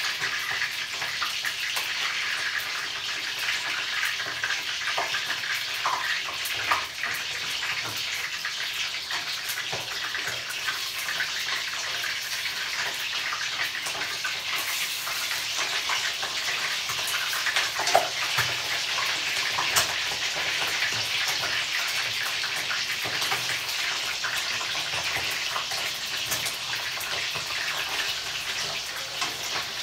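Chicken pieces deep-frying in hot oil in a wok: a steady sizzle with a few louder pops and spatters.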